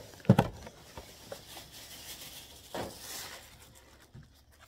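Hands handling plastic toy packaging: a sharp knock about a third of a second in, then faint rustling and rubbing, with a short swish near three seconds.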